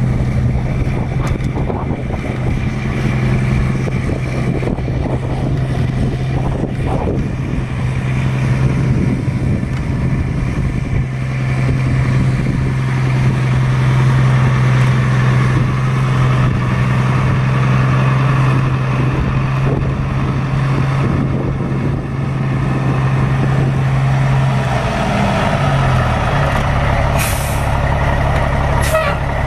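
A 1990 Peterbilt dump truck's Caterpillar six-cylinder turbo diesel engine running at a steady speed, with a steady low drone. About 25 seconds in its pitch drops and wavers, and a few short, sharp hisses follow near the end.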